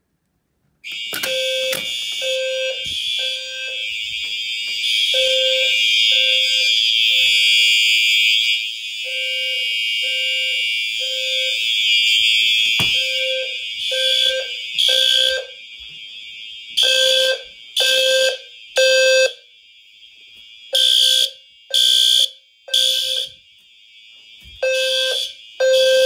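Fire alarm system in alarm after a pull station is activated. A System Sensor HW-LF low-frequency sounder pulses a low tone in the three-pulse temporal-3 evacuation pattern. Several horns sound a high, steady blare for the first half, then switch to the same three-pulse pattern in step with the low sounder.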